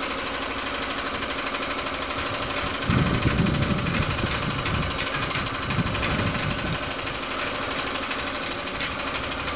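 Air compressor for the paint spray gun running steadily, with a fast, even mechanical pulse; it grows louder and lower for a few seconds from about three seconds in.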